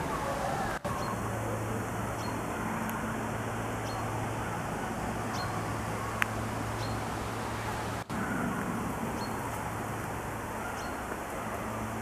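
Strong wind rushing through the leafy crowns of tall trees, a steady rush of noise with a low hum beneath it. The sound drops out briefly about a second in and again about eight seconds in, and a single sharp click sounds near the middle.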